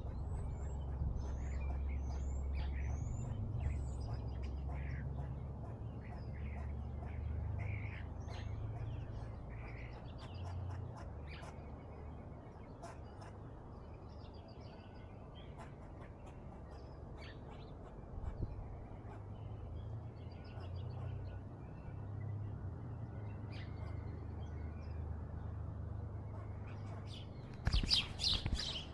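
Small birds chirping and calling on and off, with quick rising whistles in the first few seconds, over a steady low rumble. A louder, closer burst of chirps comes near the end.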